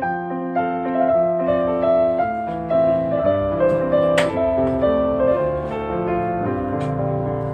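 Background piano music: a gentle melody moving note by note over held chords, with a brief sharp tick about four seconds in.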